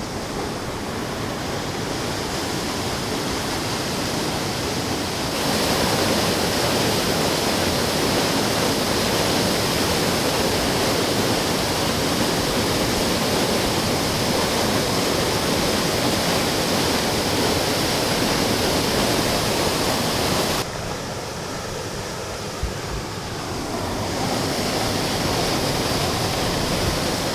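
Waterfall rushing, a steady roar of falling water. It gets abruptly louder about five seconds in and drops back about twenty seconds in.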